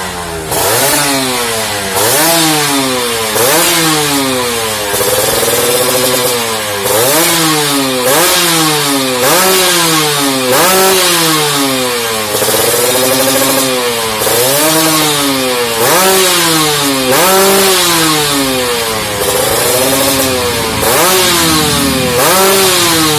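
Motorcycle engine, just brought back to running, being revved over and over: the throttle is blipped about once a second and the engine note rises sharply, then falls back toward idle each time.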